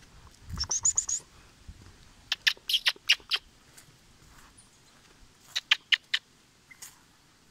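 Spider monkeys calling in the canopy: clusters of short, sharp, high-pitched calls. There is a quick run of rising notes about a second in, a burst of calls around three seconds, and another burst near six seconds.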